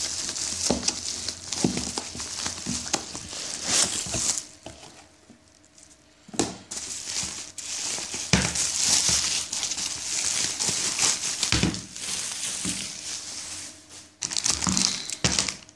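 Bubble wrap and a plastic bag crinkling and rustling as a parcel is unwrapped by hand, with a quieter pause about a third of the way in.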